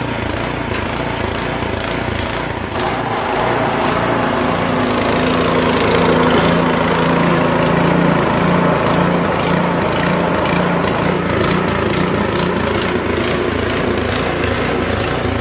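Snow blower engine running steadily, growing louder about three seconds in.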